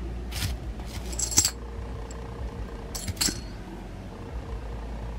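Silver coins clinking against each other as one is lifted from a stack, a few sharp metallic clinks that ring briefly. The loudest comes about a second and a half in.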